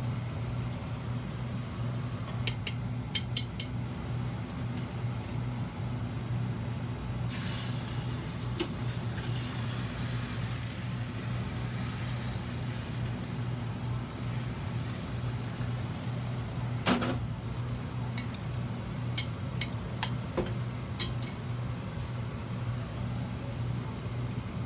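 Beaten egg hitting a hot oiled frying pan about seven seconds in: a sudden sizzle that fades over several seconds as the egg sets. Under it runs a steady low machine hum, with scattered clicks of utensils and one sharp knock against the pan about halfway through.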